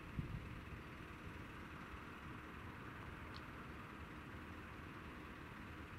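Faint steady outdoor background noise, a low rumble under a hiss, with a low bump right at the start and a short high chirp a little past halfway.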